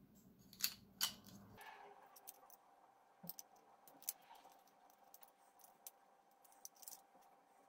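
Faint, scattered clicks and taps of hard plastic parts as a GraviTrax transfer piece is worked into its hexagonal base tile, not yet snapped in.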